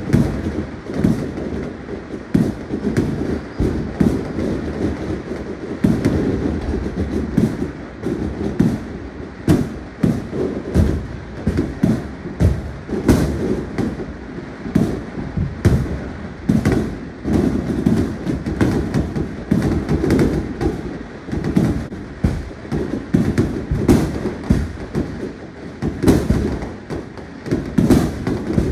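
Many aerial fireworks going off at once: a continuous barrage of overlapping bangs and booms, several a second, some louder and nearer than others.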